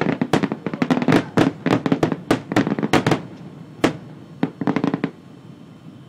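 Fireworks bursting in a rapid, dense barrage of bangs and crackles that thins to a few scattered reports and stops about five seconds in.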